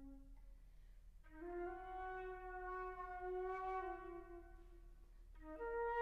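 Solo concert flute playing slow, sustained notes. A low note fades out just after the start, then after a brief pause a long note is held for about four seconds. Near the end a short lower note leads up into a higher one.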